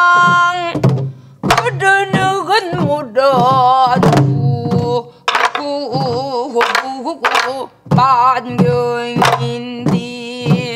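A woman singing a Korean traditional song in a wide, wavering voice while beating a sori-buk barrel drum with a wooden stick. The sharp drum strokes fall at uneven intervals through the singing. A long note is held at the start and breaks off after about a second.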